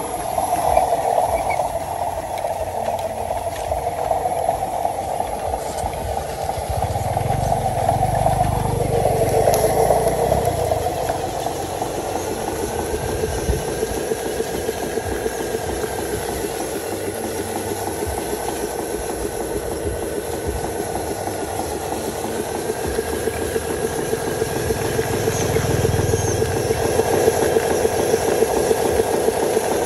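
Radio-controlled model truck's small electric drive motor and gearbox whining and rattling as it pulls a loaded trailer, the pitch dropping about nine seconds in. A thin higher whine wavers above it later on, and twice a low rumble swells in and out.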